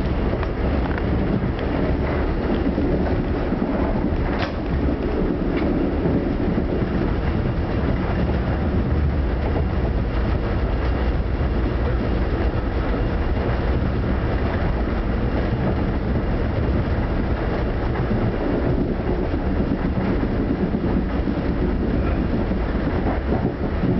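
Steady low rumble and rolling noise of an Amtrak passenger train running at speed, heard from inside the car, with a couple of faint clicks about four and five seconds in.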